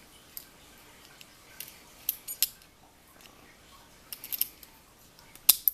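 Scattered sharp metal clicks and small rattles of a key working in a pin-tumbler challenge lock with a KW1 keyway as it is locked back up, the loudest click near the end.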